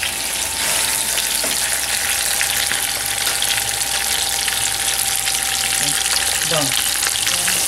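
Pork chops frying in hot oil in a frying pan, a steady loud sizzle with fine crackling throughout.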